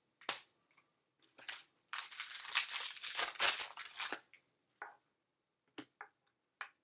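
Foil wrapper of a Bowman baseball card pack being torn open and crinkled for about two seconds, with a few light clicks before and after as the cards are handled.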